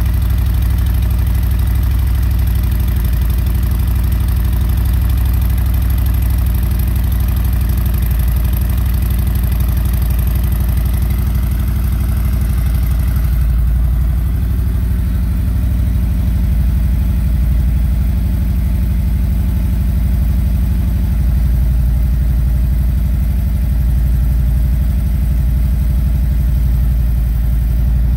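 Harley-Davidson Milwaukee-Eight 114 V-twin idling steadily after a cold start. It breathes through a Fuel Moto stainless 2-1-2 header and Jackpot Hi Roller mufflers with the dB killer inserts removed.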